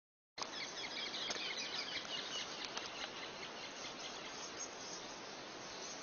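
Steady hiss of water splashing and churning where a caiman thrashes at the river's edge, with birds chirping over it in the first two or three seconds.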